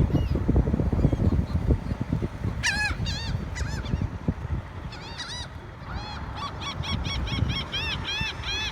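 Birds calling over a steady low rumble. A few loose high calls about two to three seconds in are followed by a fast run of short rise-and-fall calls, several a second, from about two-thirds of the way through.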